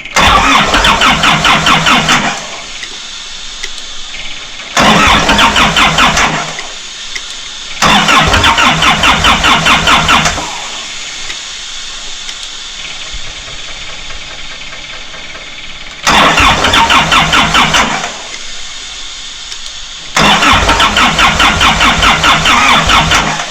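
Diesel engine of a Doosan 7/71 air compressor cranked on its starter five times, each try two to three seconds of fast, even turning-over, without catching. A steadier, quieter hum runs between the tries. The engine will not fire, with the controller showing a low fuel pressure code.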